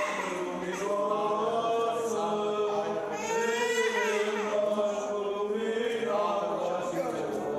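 Eastern Orthodox baptismal chant: voices chanting in long, held lines, with a brighter, higher passage about three seconds in.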